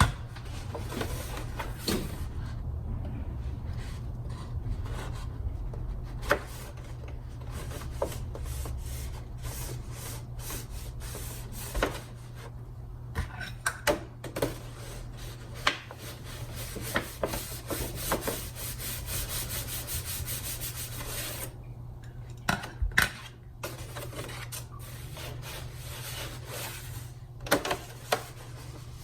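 Cardstock paper petals being handled and rubbed against each other, a steady scratchy rustling broken by sharp taps and clicks, most in the middle and near the end.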